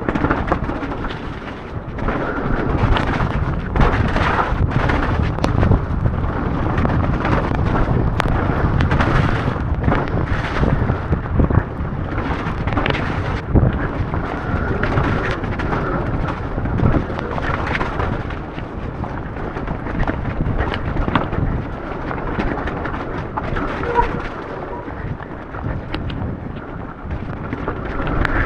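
Mountain bike descending a rough enduro trail: a steady, loud rumble of tyres on dirt and rock with wind buffeting, broken by frequent sharp knocks and clatter of the bike over bumps.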